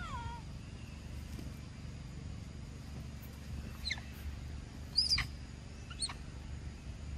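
Young macaque making short, high-pitched squeaks, each sliding sharply down in pitch: a falling cry at the start, then three squeaks about a second apart in the second half, the middle one loudest. A steady low rumble runs underneath.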